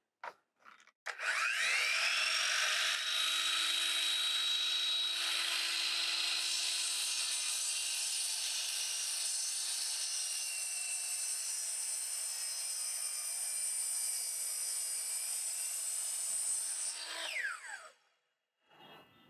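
Bosch 10-inch miter saw's motor spinning up with a rising whine about a second in, then running steadily as the blade cuts through a 4x4 timber, and winding down with a falling whine near the end. It runs on a portable power station's inverter, which holds the load without cutting out.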